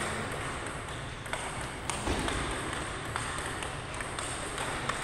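Table tennis ball being struck by rubber paddles and bouncing on the table during a rally: a few sharp clicks, unevenly spaced, over a steady hall background.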